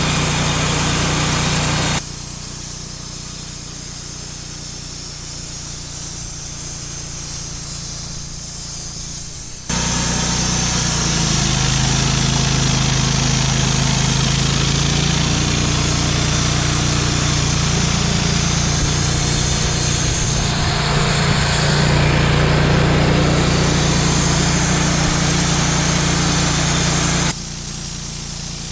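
Wood-Mizer LT35 band sawmill running steadily while its blade cuts through a black walnut log, the cut adding a loud rushing hiss over the engine hum. The hiss stops about two seconds in, leaving just the engine. It starts again about ten seconds in and runs until about a second before the end.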